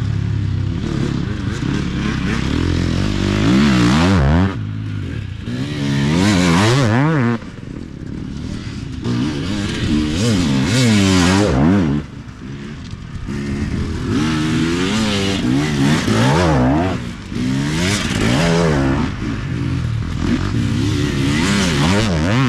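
An enduro motorcycle engine revving hard and backing off again and again. Its pitch climbs as it accelerates and drops sharply each time the throttle closes, several times over.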